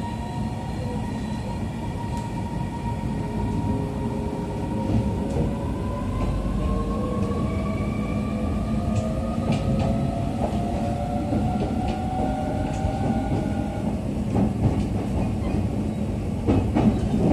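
Inside a JR East EV-E301 ACCUM battery-electric train pulling away and picking up speed: the traction motors' electric whine rises steadily in pitch over the rumble of the running gear, then the wheels clack over rail joints near the end.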